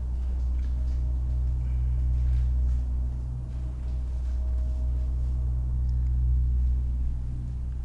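Steady low rumbling hum, with a faint thin high tone held for a few seconds in the middle.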